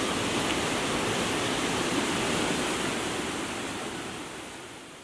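River water rushing over rocks, a steady wash of noise that fades away over the last couple of seconds.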